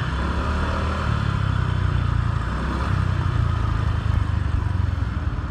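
Small motorbike engine running steadily as it is ridden along a street: a low, even hum that rises and falls slightly, over a steady hiss of wind and road noise.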